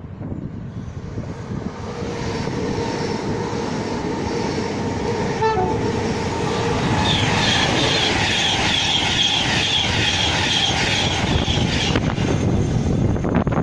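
A train passing through the station on the West Coast Main Line. It grows louder as it approaches, with steady tones in the first half, then a fast rhythmic wheel clatter over the loudest part, from about halfway to near the end.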